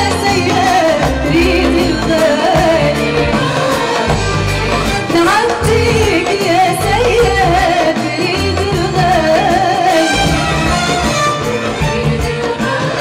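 A woman singing an Arabic tarab song live with a band, her voice carrying a wavering, ornamented melody over a steady bass accompaniment.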